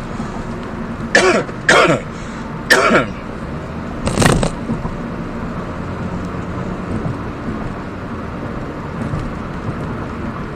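Steady road and engine noise inside a moving car's cabin. About a second in, a person gives three short vocal sounds that fall in pitch, then clears his throat once about four seconds in.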